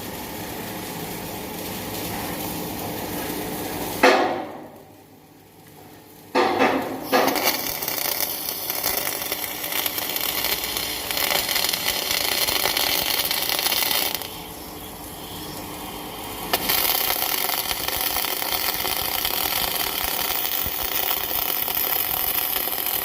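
Electric arc welding: a steady crackling hiss of the arc running a vertical (3G) weld. It stops for about two seconds shortly after the start, strikes up again, and drops off for another couple of seconds past the middle before resuming.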